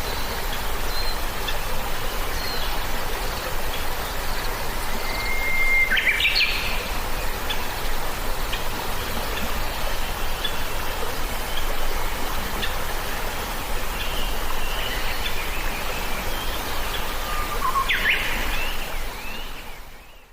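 Birds calling and chirping over a steady rushing hiss. A held whistled note about a quarter of the way in breaks into a quick flurry of chirps, and another flurry comes near the end, just before the sound fades out.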